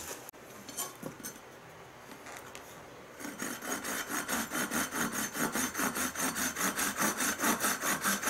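A saw cutting through a wooden rolling pin in quick, even back-and-forth strokes, starting about three seconds in after a few light knocks.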